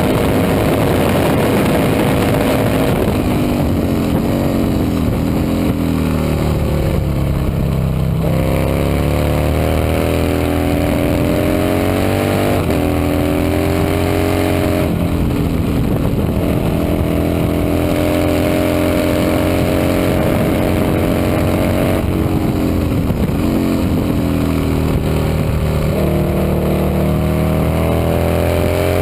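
Vintage racing motorcycle engine running hard, its pitch climbing under acceleration and then dropping sharply at each gear change or roll-off, about six times, against a constant rush of noise.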